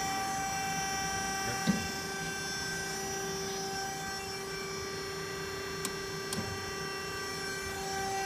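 Scotchman dual-operator hydraulic ironworker's motor and hydraulic pump running steadily, a constant hum. A sharp knock about a second and a half in, and a couple of light clicks later.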